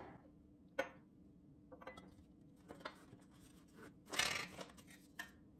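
Glass tumblers and a glass French press being picked up and set aside on a counter: a sharp clink about a second in, a few light taps, then a louder, half-second handling noise a little after four seconds in.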